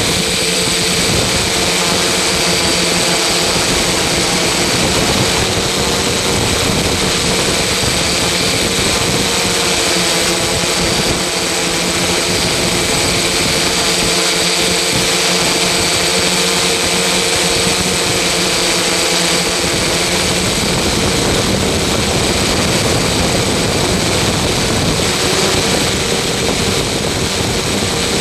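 Loud, steady drone of an engine or machine, a dense rushing noise with a constant high whine, unchanging throughout.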